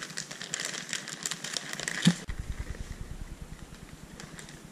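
Clear plastic zipper bag crinkling as a large fish head is pulled out of it, with a single dull thump about two seconds in as the head is set down on the plastic cutting board, then faint handling sounds.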